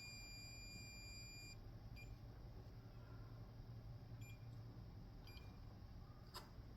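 Faint electronic beeps: one steady high beep lasting about a second and a half, then three short beeps spaced a second or two apart, and a sharp click near the end.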